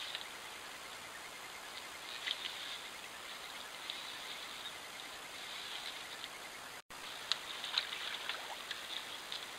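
North American beaver dragging a branch across the stick pile of its lodge: light crackling and twig snaps, thickest in the second half, over a steady hiss.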